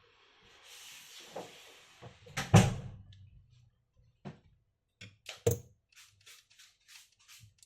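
Hands working on a laptop: a soft rustle, then two sharp knocks, the first the louder, followed by a run of short scraping strokes about three a second.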